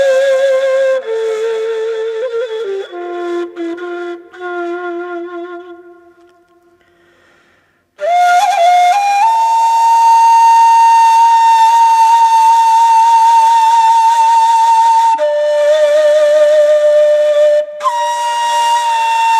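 Ney (end-blown reed flute) playing a slow, breathy solo melody. A phrase steps downward and fades away about six seconds in. After a short gap a long high note with vibrato enters, drops lower, then rises again near the end.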